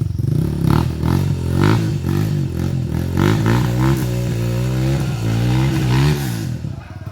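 Off-road motorcycle engine revving up and down repeatedly, its pitch rising and falling several times, then dropping away near the end.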